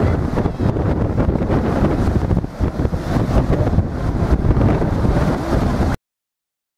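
Strong wind buffeting the microphone, over the noise of breaking surf; it cuts off abruptly about six seconds in.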